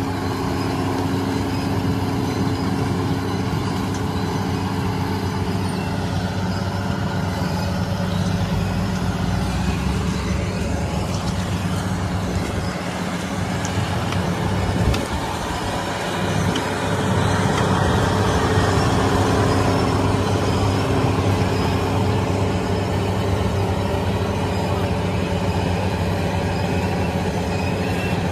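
Rice combine harvester's diesel engine running steadily while harvesting, with a single knock about halfway through.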